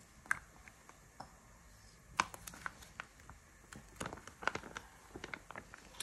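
Plastic curry sauce sachet being handled: scattered faint crinkles and clicks, busiest about two seconds in and again after four seconds.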